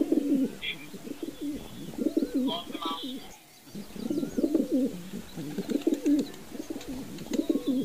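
Several fantail pigeons cooing, their calls overlapping in a continuous chorus, with a brief lull about three and a half seconds in. A few higher chirps come through just before the lull.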